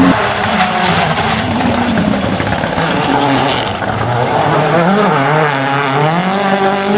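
Hyundai i20 N Rally1 rally car's turbocharged four-cylinder engine under hard acceleration out of a corner. The engine note holds, drops as the driver lifts about halfway through, then climbs twice through the gears as the car comes past.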